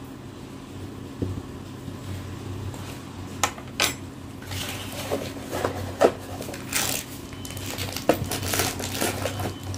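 Scattered light clinks and rustles of handling around a steel mixing bowl, as spice is added to a chicken and onion momo filling, over a steady low hum. The clinks come irregularly in the second half, the sharpest about six seconds in.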